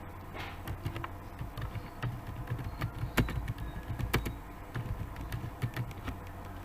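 Computer keyboard and mouse clicks: irregular keystrokes, with two louder clicks about three and four seconds in.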